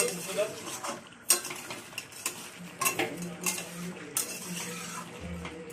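Metal spatula scraping and knocking against a steel pan as chicken pieces are stirred and slow-fried in their spices, in irregular strokes about every half second to second.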